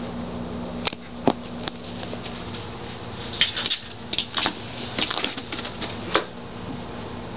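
A pet at play, giving irregular taps, clicks and scratchy scrabbling on carpet. The sharpest clicks come about a second in and again near the end, with busier bursts in between. A steady low hum runs underneath.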